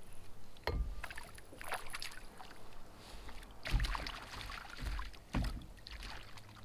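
A handful of dull knocks and short water splashes as a landed fish thrashes and is handled in a landing net over a plastic fishing kayak.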